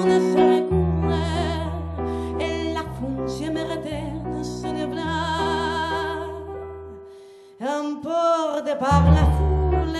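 A woman singing a slow song with strong vibrato to piano accompaniment on a stage keyboard. About seven seconds in the music fades away briefly, then her voice comes back in.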